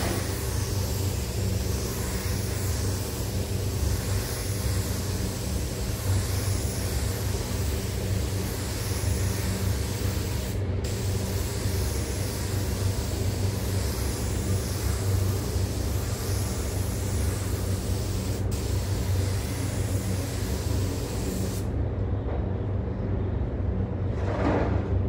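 Compressed-air spray gun hissing steadily as it sprays a glass coating onto the car's paint, over the steady hum of the paint booth's ventilation fans. The hiss cuts off suddenly a little over 20 seconds in, leaving the fan hum, and a brief swish follows near the end.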